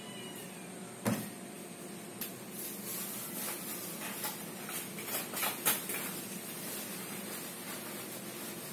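Knocks and clatter of cups and containers being handled, over a steady low hum: one loud knock about a second in, then a cluster of clicks and knocks, the loudest a little before the six-second mark.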